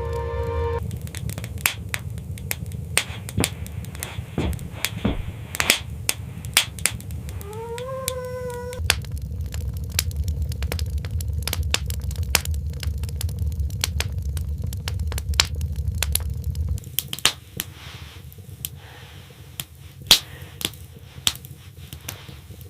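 Wood fire crackling with irregular pops over a low rumble that drops away about three quarters of the way through. About eight seconds in, a fox cub gives one short whimper that rises and then holds.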